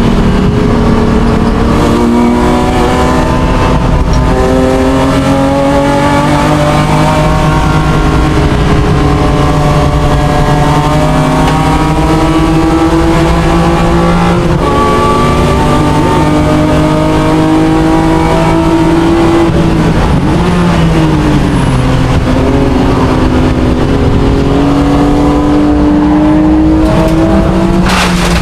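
BMW M3 GTR race car's engine heard from inside the cockpit at racing speed. The revs climb through long pulls and drop sharply twice as it shifts and slows for corners.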